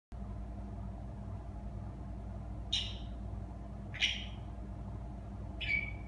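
African grey parrot chirping: three short, high chirps about a second and a half apart, starting almost three seconds in, the last ending in a brief steady whistle. A steady low hum runs underneath.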